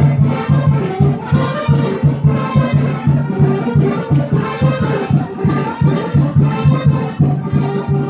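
Brass band music with a quick, steady drum beat: a son played for the couples' dance.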